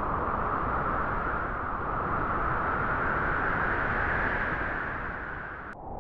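Wind blowing through grass: a steady rushing noise with no distinct events. Near the end its higher hiss cuts off abruptly.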